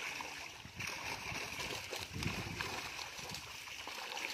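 Pond water splashing and sloshing as a cast net is hauled and lifted through the shallows.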